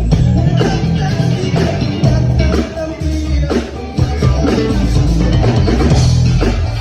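A band playing rock music: a Fodera Emperor Deluxe five-string electric bass carries heavy low notes under a drum kit keeping a steady beat.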